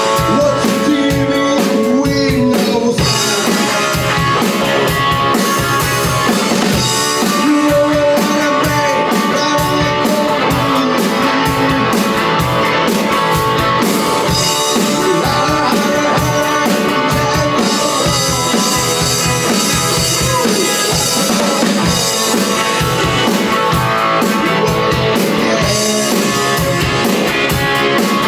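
Distorted electric guitar played through a 1967 Supro Thunderbolt tube combo amplifier, with a drum kit playing a steady rock beat alongside. The guitar bends notes throughout over continuous, loud band playing.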